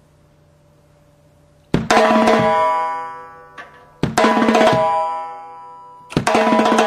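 Timbales played in three quick flurries of strokes, the first about two seconds in and then about every two seconds, each flurry left to ring out with a bright, metallic ring.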